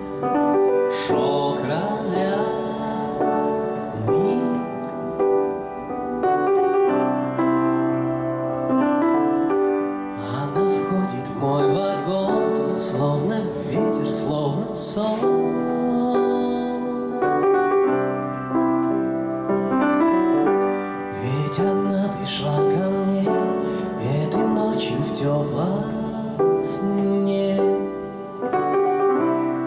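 A man singing into a microphone while accompanying himself on a grand piano.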